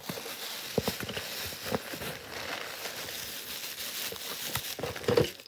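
Steady rustling handling noise, with a few light clicks and knocks scattered through it: hands moving over a cloth sheet and handling wooden toy train pieces.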